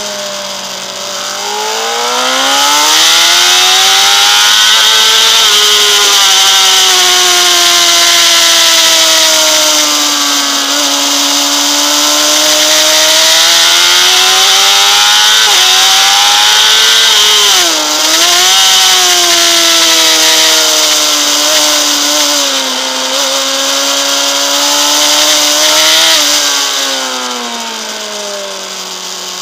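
Honda CBR600RR's inline-four engine pulling hard on track, its pitch climbing and falling with the revs through the corners, with a quick drop and recovery about eighteen seconds in. Heavy wind rush over the bike runs through most of it, and near the end the revs fall and the wind dies away as the bike slows.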